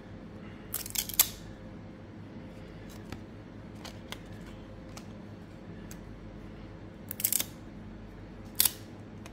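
Trading cards being handled and slid against one another: short papery swishes about a second in and twice near the end, with faint clicks, over a steady low hum.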